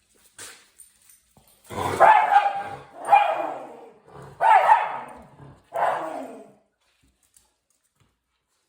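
Dog barking: four loud, drawn-out barks about a second apart.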